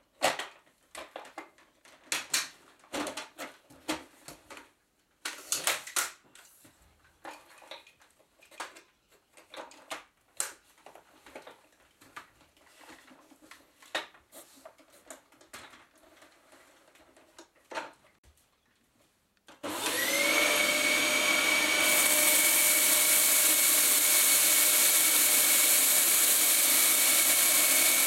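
Scattered plastic clicks and knocks as the Dyson DC11 canister vacuum is put together and handled. About twenty seconds in, its motor starts with a short rising whine and then runs loud and steady.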